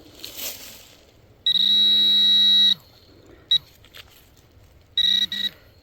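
A metal detector sounding target tones while hunting for a coin in a freshly dug plug of soil. One steady tone lasts about a second, a short blip follows, and two quick tones come near the end. A brief rustle of soil comes early on.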